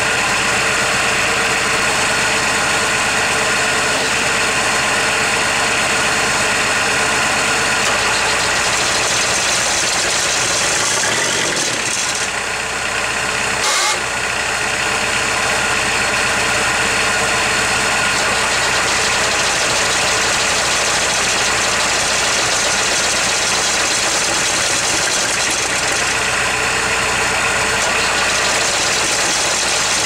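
Ford Transit van's diesel engine running at idle, cold, having just caught after a hard start with cranking trouble. The steady running dips briefly about twelve seconds in, then carries on.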